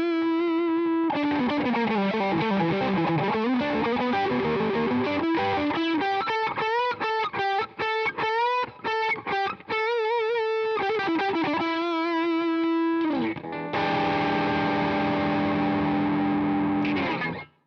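Electric guitar played through the ZOOM G2X Four's Fender Tone Master B-channel amp model at high gain, heavily distorted. Long held notes with vibrato and a falling run come first, then quick picked notes. A slide down leads into a sustained chord that rings and then cuts off near the end.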